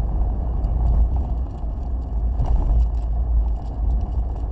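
Steady low rumble of a car in motion, heard inside the cabin: engine and road noise with no clear events.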